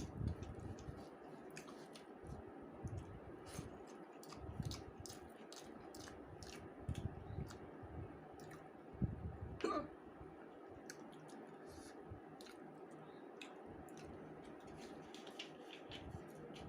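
Close-up eating sounds of rice and fish curry: wet chewing with many small mouth clicks scattered throughout, and a short throat sound about ten seconds in.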